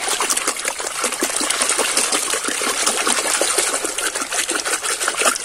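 A hand scrubbing a mud-caked plastic toy in a basin of muddy, foamy water: continuous sloshing and splashing, full of small irregular splashes.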